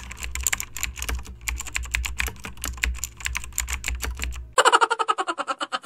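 Computer keyboard typing sound effect: a rapid, uneven run of key clicks over a low hum. About four and a half seconds in it switches to a louder, more even series of clicks that slows toward the end.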